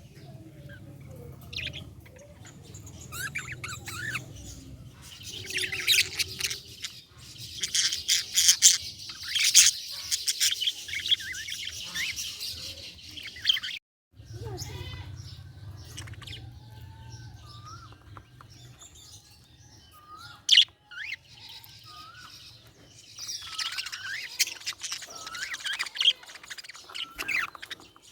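Budgerigars chirping and warbling in rapid, busy chatter, heaviest in two spells with quieter single calls between.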